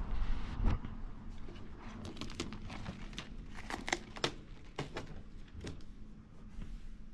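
A thin protective packaging sheet being peeled off an appliance's top and crinkled, with a run of irregular crackles. There is a handling bump in the first second.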